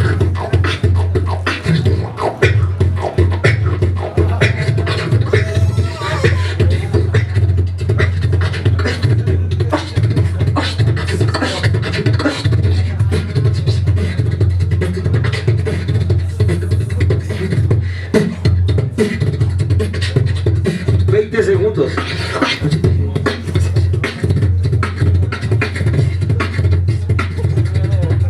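Beatboxer performing a continuous solo round into a handheld microphone: fast, dense drum-like kicks, snares and clicks over a sustained deep bass tone.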